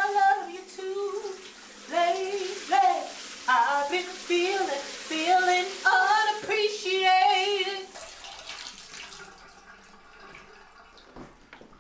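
A woman singing loudly in the shower in short held phrases, over the hiss of the running shower spray. About eight seconds in, the singing and the water stop, leaving faint room sound with a few small clicks.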